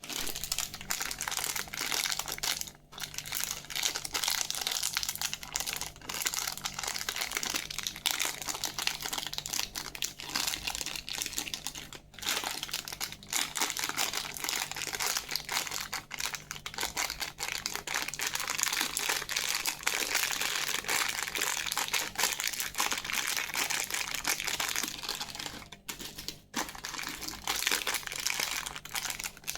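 Plastic candy wrappers crinkling as they are handled and unwrapped: a dense, crackly rustle with a few brief pauses.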